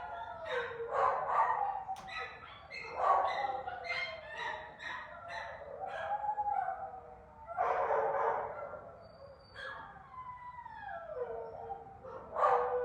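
A puppy whining and yelping in a string of high cries, several of them long and sliding down in pitch. The crying is the puppy's distress at the handler moving away from it toward the door during stay practice.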